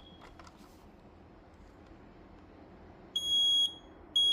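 Quell P3010B 10-year sealed photoelectric smoke alarm sounding its test alarm: after about three seconds of quiet, one loud high-pitched beep about half a second long, then a second identical beep starting near the end.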